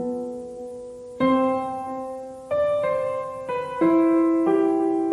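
Background music of slow, sustained piano chords, each held for about a second before the next comes in.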